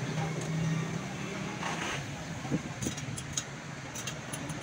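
Street traffic: a steady low hum of passing motor vehicles, with a few light, sharp clicks a little past halfway.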